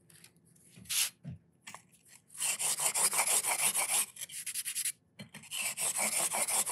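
Steel chisel being rubbed back and forth on the 1000-grit side of a 1000/3000 combination waterstone: quick, rhythmic scraping strokes, several a second. They start a couple of seconds in, stop for about a second, then resume.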